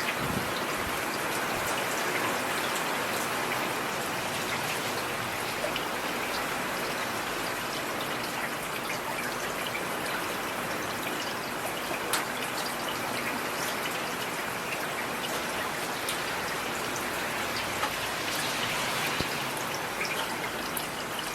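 Steady rain falling on a street, a constant hiss with a few single drops ticking out now and then.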